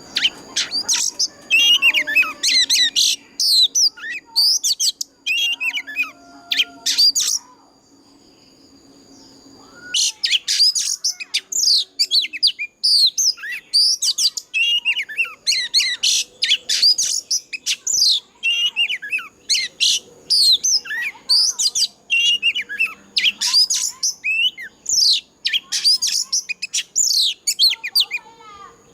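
White-rumped shama singing: fast, varied runs of loud whistles and sweeping notes that stop for a couple of seconds about a quarter of the way in, then carry on almost without a break.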